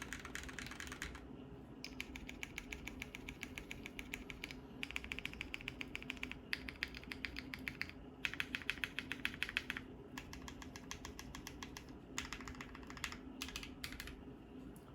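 Fast typing on a Bakeneko60 mechanical keyboard with lubed and filmed Gateron Ink Black V2 linear switches on an FR4 plate. The keystrokes are clacky and come in rapid runs of one to three seconds, with short pauses between.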